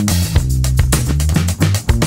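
Music with a bass line and sharp drum hits.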